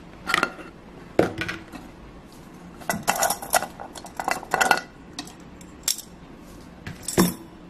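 Scattered clinks and clatters of a stainless steel camping pot, its lid and nested plastic bowls being lifted out and set down on a table, a cluster of them a few seconds in.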